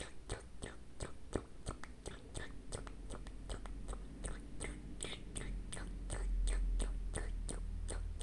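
A cat licking and lapping syrup from the tip of an oral syringe: quick wet smacking clicks, about four a second. A low rumble swells louder in the last couple of seconds.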